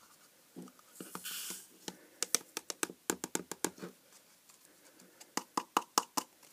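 Filter granules, a mix of ion-exchange resin beads and activated charcoal, poured and shaken out of a jug water-filter cartridge into a clear plastic tub, rattling and pattering as they land. The ticking comes in two runs with a short pause between, after a brief scrape about a second in.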